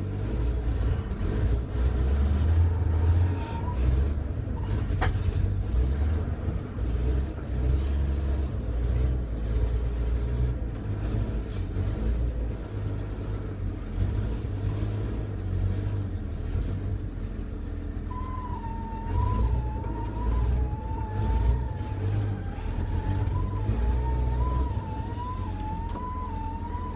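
Chevrolet C10 pickup truck on the move, its engine running with a low rumble that swells and dips as it is driven and shifted. From about two-thirds of the way in, a high wavering tone rides over the rumble.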